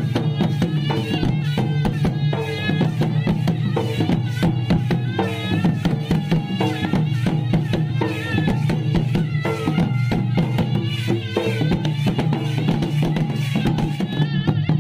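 Traditional folk music with fast, dense drumming under a wavering melody line.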